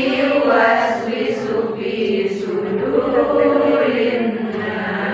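A group of voices chanting Arabic recitation in unison at the close of a Qur'an khatam, with long held notes that rise and fall slowly.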